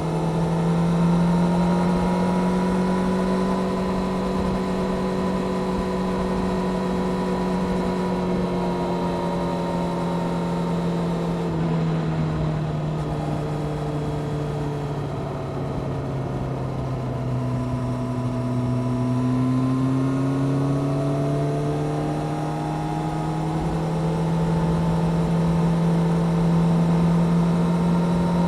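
Honda CBR600F Sport's inline-four engine with a Delkevic aftermarket exhaust, pulling at steady revs while the bike is ridden. The note drops about twelve seconds in, sinks lower for a few seconds, then climbs back up from about twenty seconds in as the rider accelerates again.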